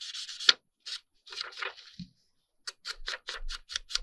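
Ink blending tool rubbed and dabbed along the edges of scrapbook paper. It starts as a brushing scrape, then after a few separate strokes becomes a quick run of short scuffing strokes, about five a second, from about halfway through.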